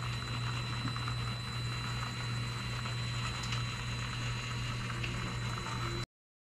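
Micro RC crawler's small electric motor and gear drivetrain running under throttle as the truck grips a steep climbing board, a steady hum with a thin high whine over it. The sound cuts off suddenly about six seconds in.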